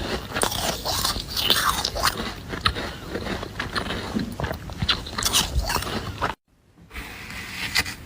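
Someone biting and chewing flaky freezer frost: a dense run of crisp crunches and crackles that cuts out completely for about half a second near the end.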